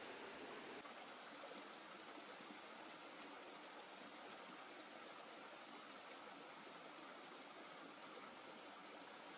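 Faint, steady running of a stream over rocks, a little quieter after about a second in.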